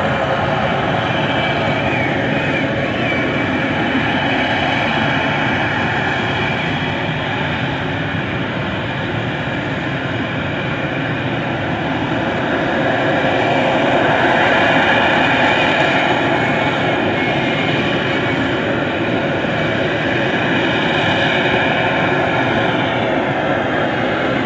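Harrier jump jet's Rolls-Royce Pegasus turbofan running at hover thrust: a loud, steady rush of jet noise with a high whine through it, swelling louder about halfway through.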